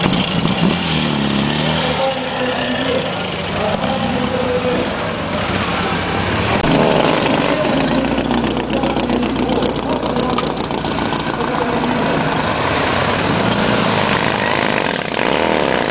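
Motorcycle engines running and revving, their pitch rising and falling, amid voices.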